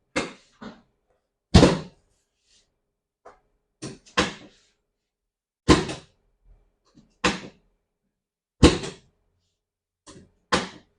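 Drop sections of a chiropractic adjustment table dropping under the chiropractor's thrusts: a series of sharp thunks at irregular gaps of one to two seconds, about eight loud ones with a few lighter knocks between.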